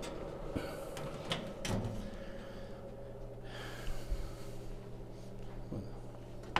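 A baking dish is set into a French-door countertop oven and the doors are shut: a few light clicks and knocks, over a low steady hum.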